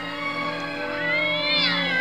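A cat's drawn-out yowl, rising and then falling in pitch, begins about halfway through over steady background music: a cat-fight sound effect.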